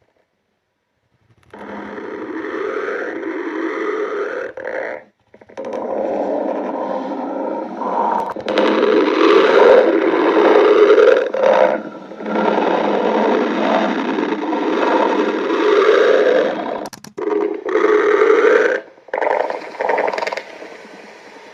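Stomach-growling sound effect: long, loud rumbles joined one after another, with abrupt silent breaks between the pieces, the first after about a second and a half of silence.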